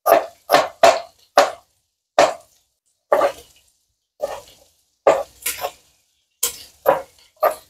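Chef's knife chopping garlic or onion on a plastic cutting board: about a dozen separate chops at an uneven pace, with short pauses between them.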